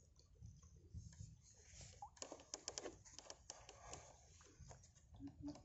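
Near silence with faint, irregular patter and ticks: water dripping and trickling off a traditional lift net as it is hauled up out of floodwater.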